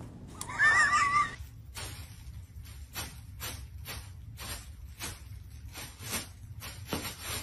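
A high, wavering animal cry lasting about a second, followed by a steady run of short scuffing strokes, about two a second.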